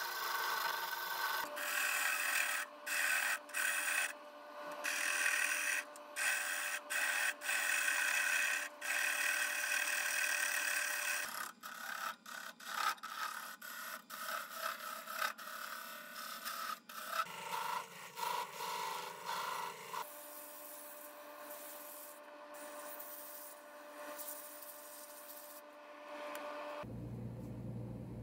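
A turning gouge cutting a spinning wooden goblet on a lathe: a rasping scrape of the tool on the wood in repeated passes, broken by short gaps as the tool lifts off, over a thin steady whine from the lathe. Near the end the cutting stops and a lower steady hum is left.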